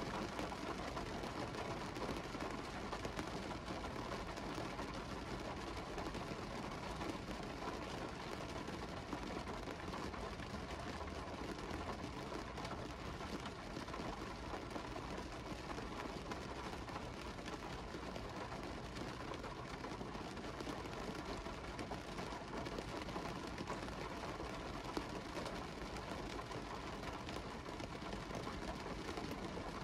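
Steady rain falling on a car window, an even hiss dotted with many small drop ticks.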